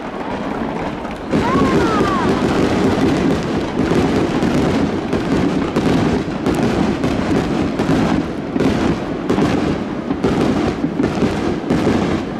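Aerial fireworks going off in a steady run of bangs and crackles over a stadium crowd's chatter, with a short whistle about a second and a half in.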